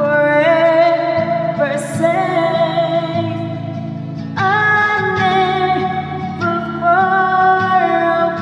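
Female voice singing long, gliding held notes without clear words over a steady instrumental accompaniment, in a slow worship-song style.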